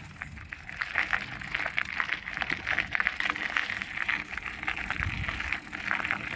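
Bafang BBSHD mid-drive electric bike riding along a gravel path: the knobby tyre crunches over gravel amid a dense, irregular run of small clicks and rattles, over a low rumble.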